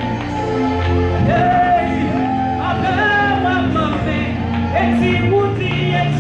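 A woman singing a gospel song live into a handheld microphone over sustained instrumental accompaniment, her voice bending and holding long notes.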